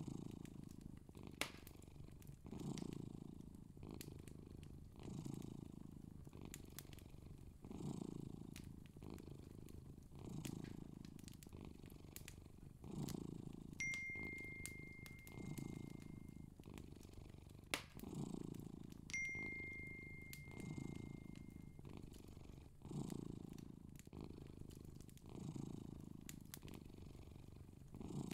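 Cat purring in slow, muffled swells about every two and a half seconds. Faint clicks run through it, and two steady high tones of a few seconds each sound in the middle.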